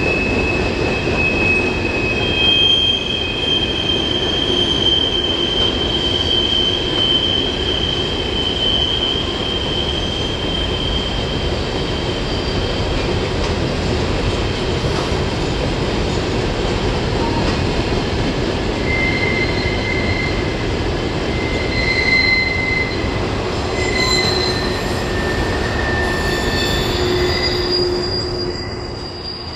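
Freight train cars rolling past, their steel wheels squealing against the rails over a steady rumble. A long high squeal holds through the first third, then shorter squeals at shifting pitches come and go later on.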